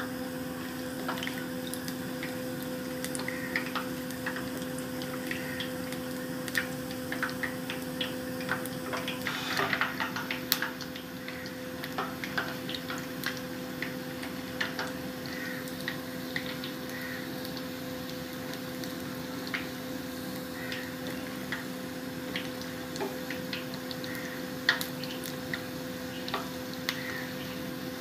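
Gulab jamun dough balls frying in oil on a low flame: the oil bubbles with scattered light crackles and pops, over a steady low hum. A louder flurry of crackling comes about ten seconds in.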